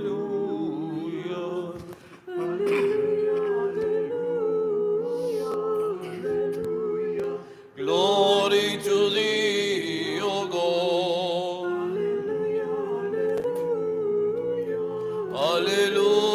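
Unaccompanied Orthodox liturgical chant sung by a small choir, on long, drawn-out notes. It breaks off briefly about two seconds in and again near eight seconds.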